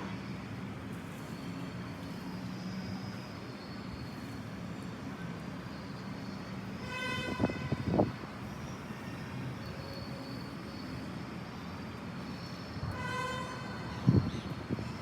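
Traffic noise with a horn sounding twice, about six seconds apart, each blast about a second long and steady in pitch. A few short knocks come near each blast.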